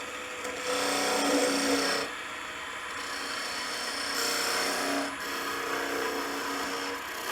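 A turning tool cutting into cherry wood spinning on a lathe, a hissing scrape in several short passes over the lathe's steady hum. This is the cut that narrows a V groove before the piece is parted off.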